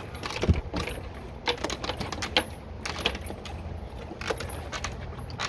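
Swing-set chains clinking and rattling in irregular clicks as the swing moves back and forth, over a low steady rumble.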